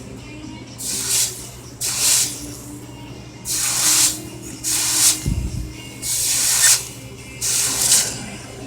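Hot steel knife blade being quenched: a series of short hissing sizzles, about one a second, as the blade goes into the quench over and over. A dull low thump comes a little past the middle.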